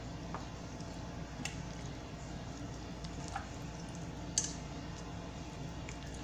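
Chopsticks stirring ramen noodles and toppings through iced broth in a stainless steel bowl: soft wet squishing with a few light clicks, the sharpest about four seconds in, over a steady low hum.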